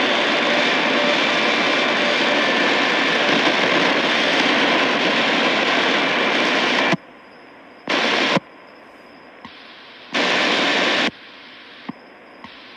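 Shortwave radio static from a Tecsun PL-880 receiver tuned between stations in the 41-metre band: a loud hiss with faint whistles in it. About seven seconds in the hiss cuts out abruptly, then comes back twice in short bursts as the tuning moves on, with a few sharp clicks.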